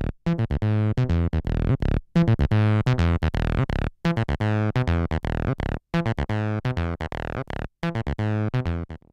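Behringer TD-3 analog bass line synthesizer, a TB-303 clone, playing a sequenced acid bassline through its built-in distortion circuit. Short, repeated bass notes, each with a falling filter sweep, in a pattern that loops about every two seconds.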